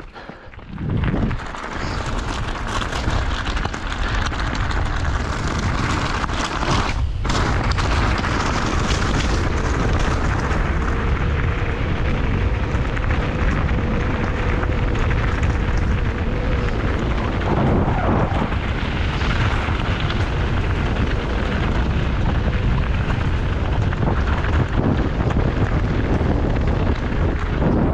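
Heavy wind rumble on the microphone of a mountain bike's onboard camera, mixed with the tyres crunching and rattling over loose gravel on a fast descent. It drops away briefly at the very start, then runs on steadily.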